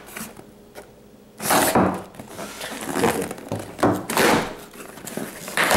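A machete and a cardboard shipping box being handled: a thunk about a second and a half in, then repeated scraping and rustling as the blade is worked against the box and its packing tape.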